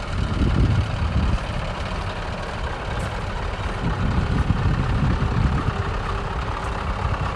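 Scania R500 tractor unit's V8 diesel engine idling steadily.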